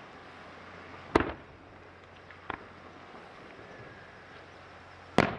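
Aerial fireworks shells going off: two loud, sharp booms about four seconds apart, one about a second in and one near the end, with a fainter crack between them.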